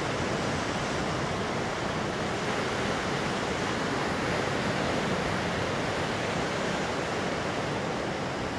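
Ocean surf washing over and around coastal rocks: a steady rushing noise with no separate wave crashes standing out.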